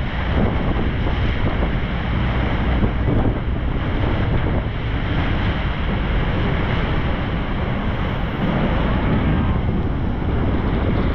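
Wind buffeting the microphone of a tour boat under way at speed, with the rush of water along the hull and the boat's engine running steadily underneath.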